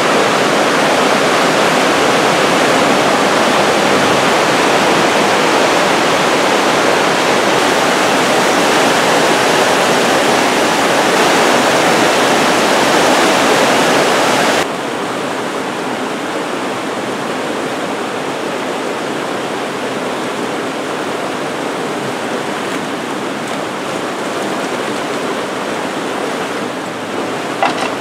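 River rapids rushing steadily, a loud, even wash of water. About halfway through it drops suddenly to a quieter rush.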